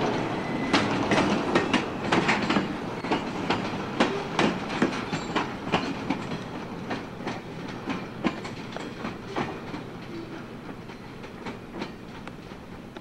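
Freight cars rolling along the track, their wheels clacking over rail joints in a run of sharp irregular clicks over a rumble. The sound fades steadily as the train moves away.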